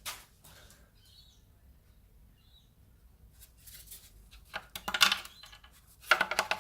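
Light clinking and clattering of small hard objects being handled, coming in short clusters from a few seconds in, loudest about five seconds in and again near the end.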